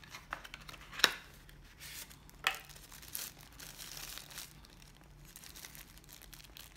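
Plastic packaging crinkling as a phone charger and USB cable are handled out of the box, with a sharp click about a second in and another about two and a half seconds in.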